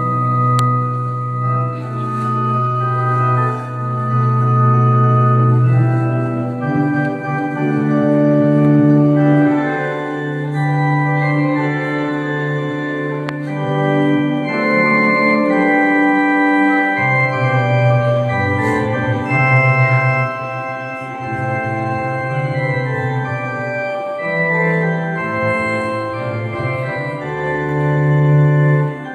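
Electric organ playing long held chords over a steady bass line, accompanying a gospel choir song.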